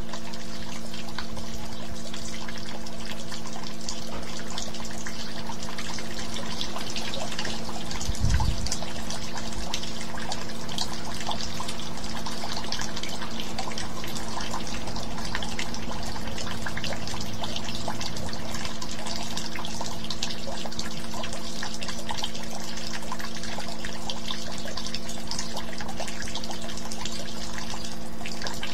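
Steady sound of running, trickling water over a low, steady hum of several tones, with a brief low thump about eight seconds in.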